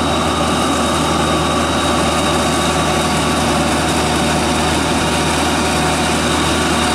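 Kubota engine of a homemade crawler-tracked tiller running steadily as the machine drives along on its tracks.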